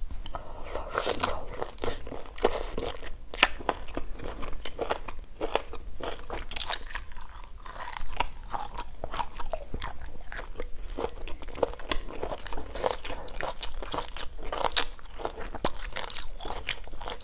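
Close-miked chewing of stir-fried chicken gizzard with lemongrass and chili: many short, irregular crunches and wet mouth sounds.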